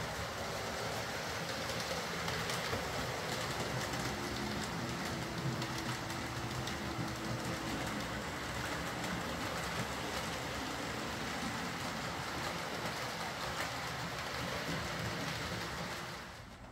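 Hornby OO gauge A4 'Mallard' model locomotive and its coaches running over the layout's track: a steady rolling rattle of small wheels on rails, with a faint whine from the locomotive's freshly fitted replacement motor. The level drops suddenly near the end.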